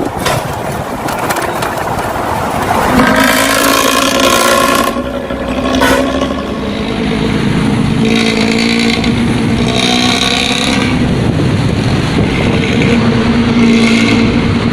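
Old Luragung intercity bus with a loud raspy 'ngorok' exhaust, its engine running and revving at close range, with several stretches of a steady pitched drone.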